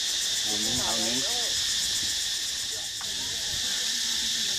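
Steady, high-pitched chorus of tropical insects buzzing with a fast, even pulse, with a person's voice heard briefly about a second in.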